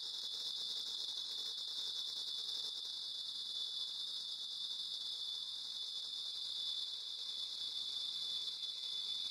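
A steady, high insect-like hissing drone from the performance's music score, even and unbroken, with a faint lower tone beneath it that fades out about three seconds in.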